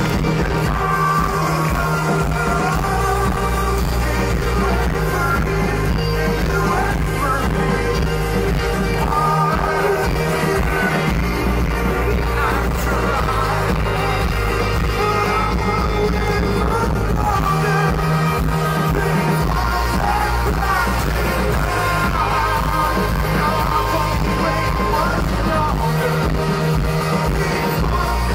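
Live rock band playing with a lead singer, heard through a large festival PA from the audience.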